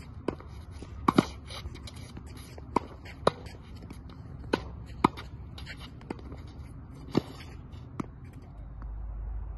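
Tennis rally at the net: rackets striking the ball in quick volley exchanges, about ten sharp pops, often in pairs half a second apart. The pops stop about eight seconds in, and a steady low rumble follows.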